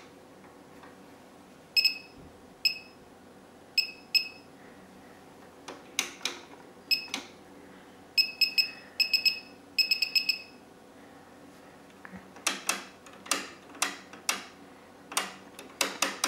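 Short electronic key beeps from a digital function generator's front panel, single at first and then in quick runs of two to four, as its settings are changed. From about twelve seconds in comes a string of sharp clicks: the detents of the Tektronix 465B oscilloscope's knob being turned.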